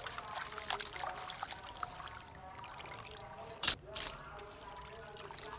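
Water splashing and trickling as river prawns are rinsed by hand in a metal basin, with one sharp clink about two-thirds of the way through.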